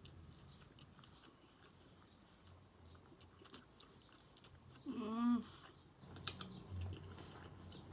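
Close-miked chewing of food, with small wet mouth clicks and smacks. About five seconds in, a short hummed vocal sound of enjoyment, the loudest moment.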